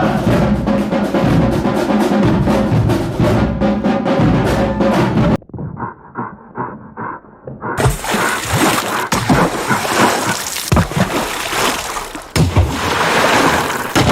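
Marching band drumline playing, with bass drums beating a dense rhythm, which stops abruptly about five seconds in. After a quieter stretch, loud splashing and sloshing of water with repeated thuds takes over.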